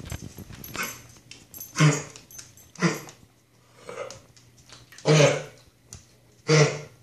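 A dog coughing repeatedly: four loud coughs a second or so apart, with fainter ones between.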